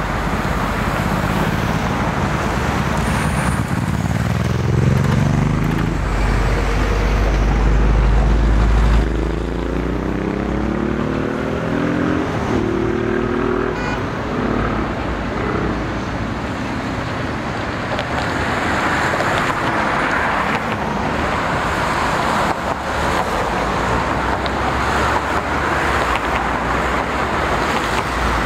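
Road traffic with a heavy truck passing: its diesel engine rumbles loudly and its note climbs twice as it pulls away and shifts gear. After that comes steady traffic and tyre noise.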